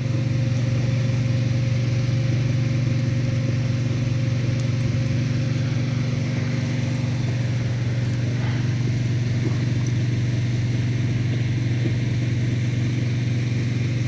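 A steady, low mechanical hum at one unchanging pitch, as from a running motor or engine.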